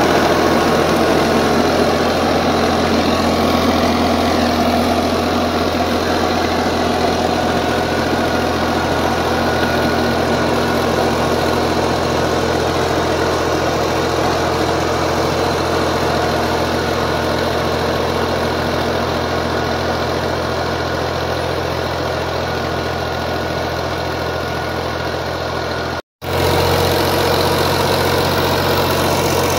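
Al-Ghazi 480 tractor's three-cylinder diesel engine running steadily under load, driving a PTO rotavator that tills the soil. The engine keeps an even note without labouring. The sound cuts out for an instant near the end, then goes on.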